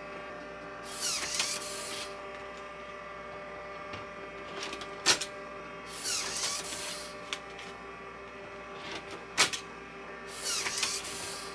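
Macintosh floppy drive whirring in three bursts of about a second each as it works the disks, with two sharp mechanical clicks between them, over a steady electrical hum.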